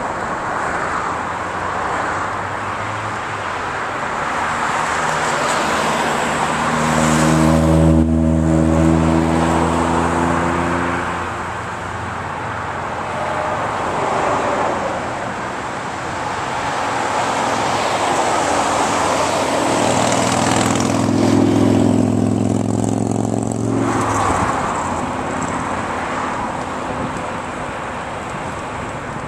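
Wind rushing past an open car window at highway speed, with steady road noise. Twice, about seven and about twenty seconds in, a deeper engine drone swells up for a few seconds and fades.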